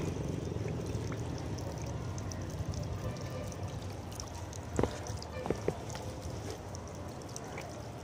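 Water running from an outdoor tap and splashing over a bird's wet feathers and onto the concrete below, as the bird is doused to cool it. Two short sharp knocks come about five seconds in.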